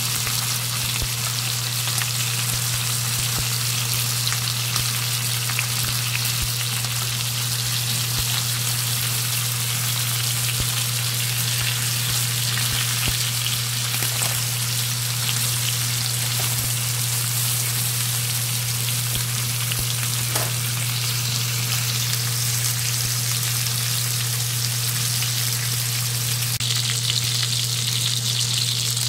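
Beef rib-finger meat sizzling as it fries in butter in a stainless steel pan: a steady crackling hiss that grows brighter near the end. A steady low hum runs underneath.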